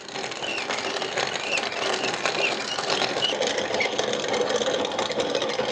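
Hand-cranked cast-iron grain mill grinding dried corn kernels on a coarse first-pass setting: a steady, dense crackling grind as the kernels are crushed between the burrs.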